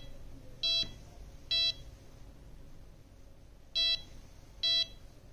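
A PC motherboard's speaker sounds a POST beep code: short, identical high beeps in groups of three, about a second apart, with a longer pause between groups. It is the 386 board failing to POST, here with its second memory bank populated.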